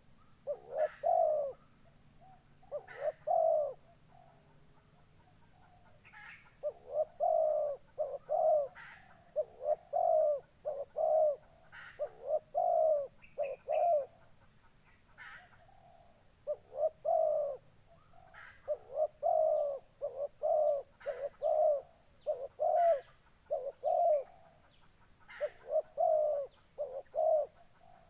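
Zebra dove cooing: clusters of three or four quick, low coo notes, repeated every second or two. A faint, steady high-pitched whine runs underneath.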